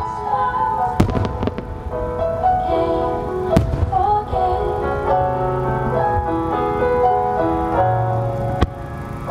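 Music with a sustained melody plays over a fireworks display, with a few sharp shell bursts cracking through it, one about a second in and the loudest about three and a half seconds in. The recording is distorted.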